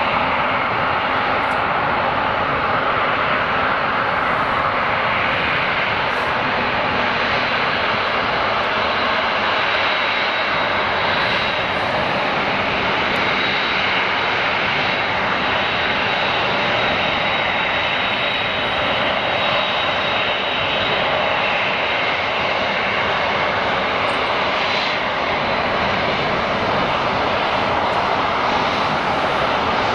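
Cargolux Boeing 747 freighter's four jet engines running steadily as the aircraft taxis and turns on the runway: an even engine rumble with a thin high whine held above it.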